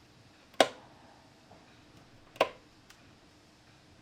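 Two sharp clicks, the second about two seconds after the first, followed soon by a faint tick.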